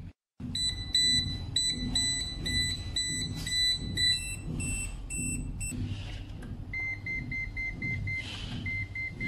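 MESTEK DM100 digital multimeter beeping. First comes a repeated alarm beep, about two or three a second, that signals a blown fuse. About four seconds in, a higher-pitched beeping follows as a piezo buzzer's frequency is measured. Near the end come quicker short beeps, about four a second, as the meter flags a live wire.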